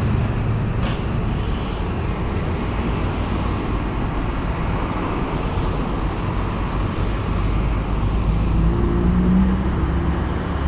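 Road traffic on a city avenue: cars driving past close by, with one passing a little louder near the end.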